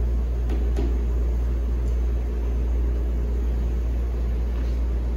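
Steady low hum with an even hiss of background room noise, unchanging throughout, with two faint soft ticks about half a second in.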